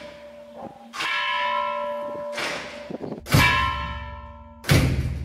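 Temple bell being struck, a strike about every two seconds, each one ringing on and slowly dying away, with a duller, noisier knock falling between the bell strokes. This is the temple's five o'clock bell.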